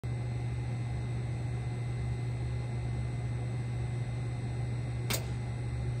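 2002 Bard 3-ton wall-mounted heat pump sitting idle before startup, giving a steady low hum, with a single sharp click about five seconds in.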